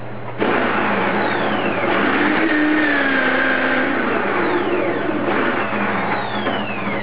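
Electric drill, clamped chuck-up, boring a drill bit lengthwise into the end of a wooden dowel pressed down onto it. The cutting noise starts abruptly about half a second in and stays loud, with a few falling whines as the drill comes under load.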